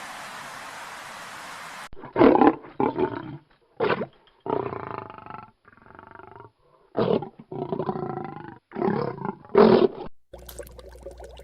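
A big cat giving a series of about nine roaring calls of varying length, after about two seconds of steady hiss. Near the end it cuts to a different crackly sound.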